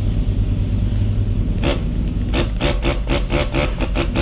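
Small motor of a toy electric airbrush pen (Aerocolor) humming steadily. From about halfway through, it gives a quick series of short hissing sprays of marker ink, several a second.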